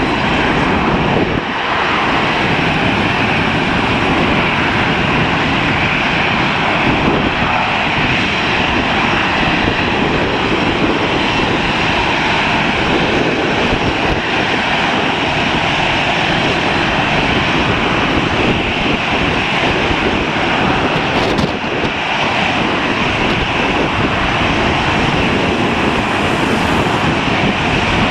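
Jet airliner engines running, a loud, steady rushing noise with no rise or fall.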